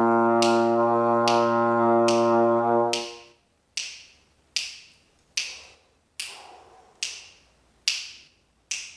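Trombone holding a steady low B flat with the slide all the way in, stopping about three seconds in. Finger snaps keep a steady beat of a little over one a second throughout, counting time for the note and the rests after it.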